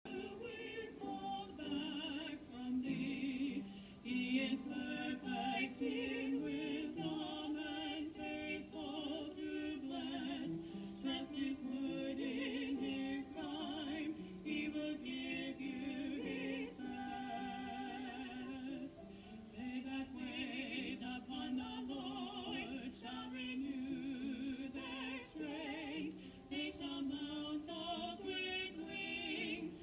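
Two women singing a duet, holding notes with heavy vibrato in an operatic style.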